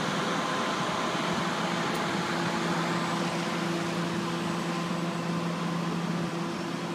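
Steady mechanical hum and drone of the Ringling Bros. and Barnum & Bailey circus train's passenger cars rolling slowly past.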